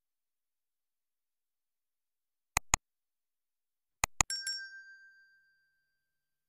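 Two quick double clicks, then a small bright ding that rings out and fades over about a second and a half, set against dead silence.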